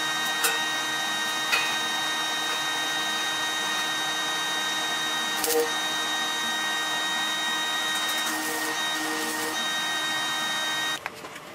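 Electric arc welding on a steel truck bumper: a steady hiss from the arc with a high, even whine over it and a few sharp cracks, stopping abruptly near the end.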